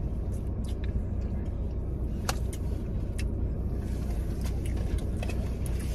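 Steady low rumble of a parked car's engine idling, heard from inside the cabin, with a few short sharp clicks and taps over it.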